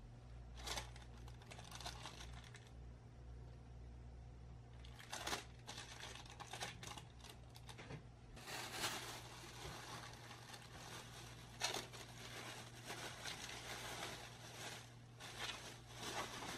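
Thin plastic bag crinkling and rustling in irregular bursts as it is handled, with a few sharper crackles.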